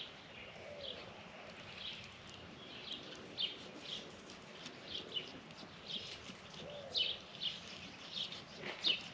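A bird chirping repeatedly: short high notes, roughly two a second, with a couple of faint lower calls.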